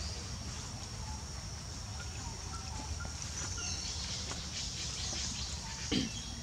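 Outdoor ambience of a steady high insect drone with a few faint short chirps over it, and a brief low sound near the end.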